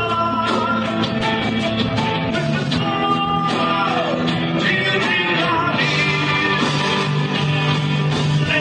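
Heavy metal band playing live: electric guitars, bass and drums going steadily, with gliding lead lines.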